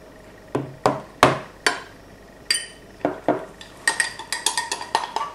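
Cutlery and crockery clinking at a table: a few separate knocks, then a quick run of clinks with a short metallic ring from about four seconds in, like knives and forks on ceramic plates.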